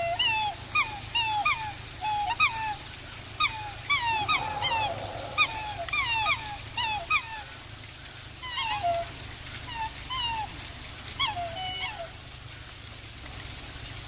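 Black swans calling: a rapid series of short, high bugling notes, each rising and then falling in pitch, from several birds overlapping. The calls come thickly at first and thin out after about eight seconds.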